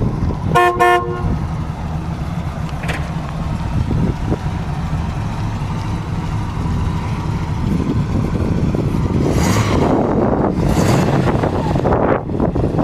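1986 GMC Jimmy's horn giving two quick honks less than a second in, over the steady running of its 350 V8 as it drives slowly past. Two swells of rushing noise come near the end.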